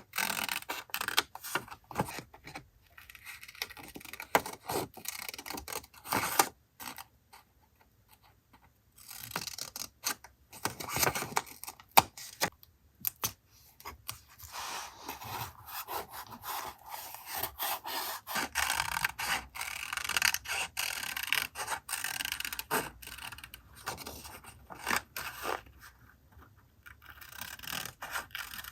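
Paper being handled and rubbed for a collage journal page: irregular rustling, scraping and rubbing with small taps, pausing briefly twice.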